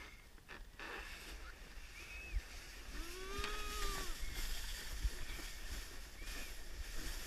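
Plastic sled hull scraping and hissing steadily over snow as it is towed uphill on a rope. A voice calls out once for about a second, about three seconds in.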